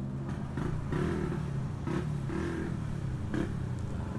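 A motorcycle engine running steadily, with three light knocks about a second and a half apart.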